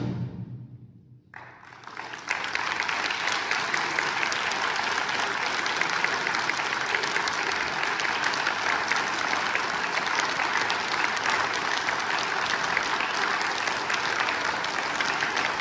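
The last chord of a wind ensemble dies away into a brief hush, and about a second and a half in an audience breaks into applause that carries on steadily.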